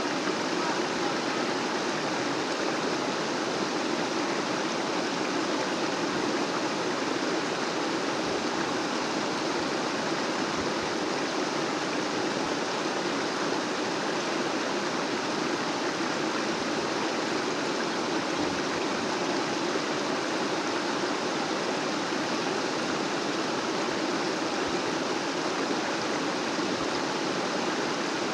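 Fast-flowing water rushing steadily: a stream swollen by heavy rain.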